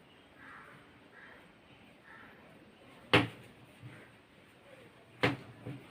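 Two sharp knocks about two seconds apart, the first the louder, the second followed by a fainter click.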